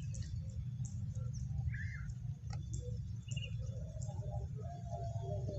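Outdoor ambience: a steady low rumble with a few short bird chirps and scattered faint high ticks. Near the end a wavering tone comes in.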